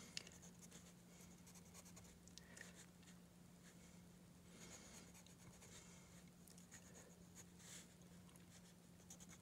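Faint scratching of a colored pencil on sketchbook paper, in clusters of short, repeated shading strokes.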